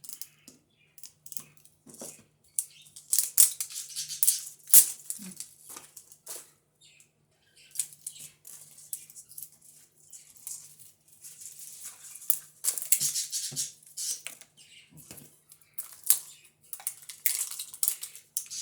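Crinkling and tearing of the plastic wrapping on a 5 Surprise toy ball as it is picked open by hand, in irregular bursts of crackles.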